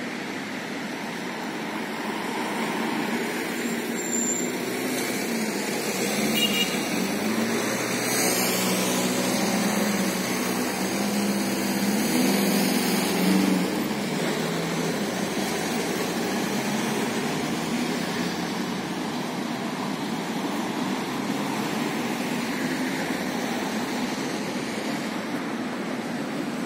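Steady road traffic noise, with a motor vehicle's engine growing louder as it passes close by for several seconds in the middle, then fading back into the general traffic hum.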